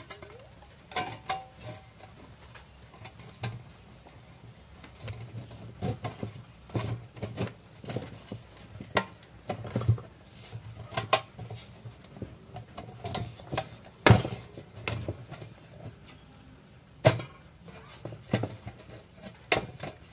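A thin galvanized sheet-metal cover plate being handled and fitted onto the steel chassis of a homemade battery charger: scattered clanks, taps and scrapes of sheet metal, with two sharper knocks near the two-thirds mark.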